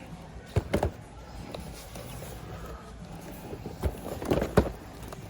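Boxed toys being taken off a store shelf and set into a shopping cart: a couple of knocks about half a second in, then a cluster of knocks and scrapes around four seconds in.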